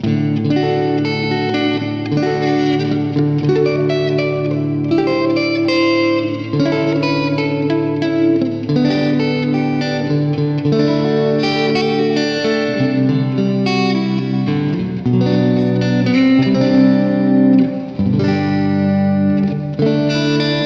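Electric guitar played through the Neural DSP Mesa Boogie Mark IIC+ amp-modeler plugin with effects, ringing out held chords and notes that change every second or so.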